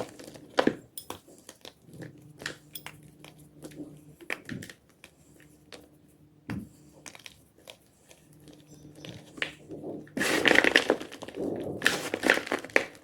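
Block of gym chalk crunching: scattered small crackles and clicks, then a dense, louder run of crunching about ten seconds in that lasts a couple of seconds.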